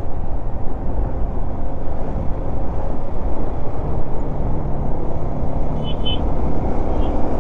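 Motorcycle riding along a road: wind rushing over the microphone over the engine's steady running. A few brief high chirps come about six seconds in.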